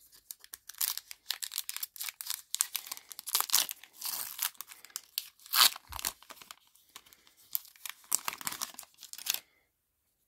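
Foil wrapper of a 2023 Topps Heritage baseball card hobby pack being torn open and pulled apart by hand, crinkling and crackling unevenly for about nine seconds, then stopping abruptly.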